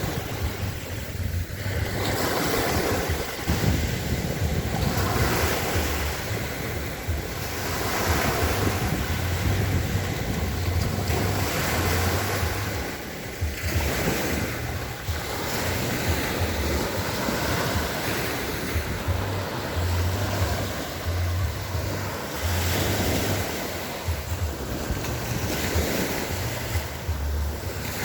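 Black Sea surf: waves washing in and out in steady swells, with wind rumbling on the microphone.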